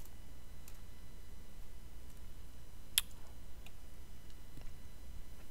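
Quiet room tone with a faint steady low hum, broken by one sharp click about three seconds in and a few fainter ticks.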